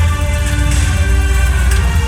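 Loud background music from the show's sound system, with sustained tones over a heavy, steady bass.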